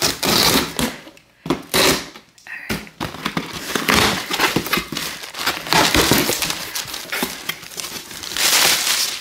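Packaging crinkling and rustling as it is handled, in irregular bursts.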